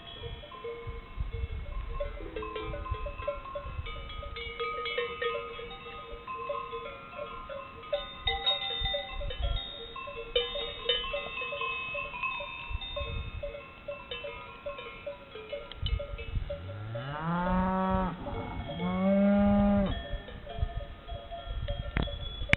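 Many cowbells clanking and ringing at different pitches from a herd of cattle throughout. About two-thirds of the way in a cow moos twice: a rising call, then a long held one, the loudest sound.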